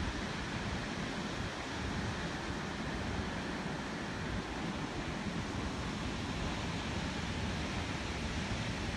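Steady roar of rushing water, even in level throughout, with some low rumble of wind on the microphone.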